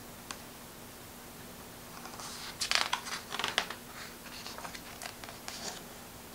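A page of a hardcover picture book being turned: paper rustling and crinkling for a few seconds, loudest around the middle, after a light click shortly after the start.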